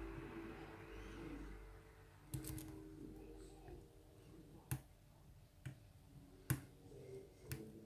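Small sharp clicks of lock picking: a hook pick and tension wrench working the pins of a pin-tumbler lock, about six clicks at uneven intervals after a couple of seconds of soft handling rustle.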